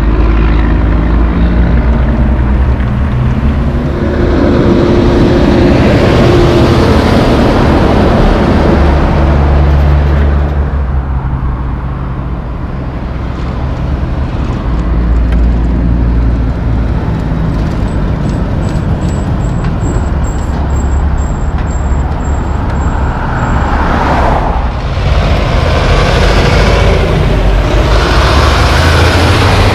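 Road traffic with heavy diesel trucks passing: engines running with low engine tones and tyre noise, swelling as vehicles go by, loudest near the end as a dump truck with a pup trailer passes close.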